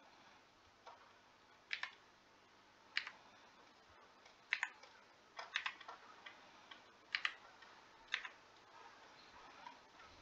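Faint, scattered clicks of computer keys, about six of them, some single and some in quick pairs, spread irregularly over several seconds.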